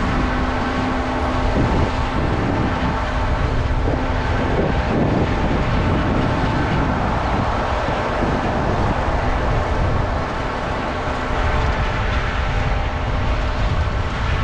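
Heavy harvest machinery running steadily: a loud, continuous engine rumble with steady humming tones over it.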